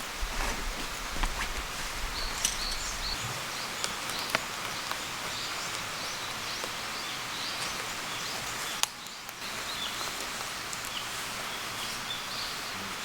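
Woodland ambience: a steady hiss with small birds chirping over it and a few scattered clicks.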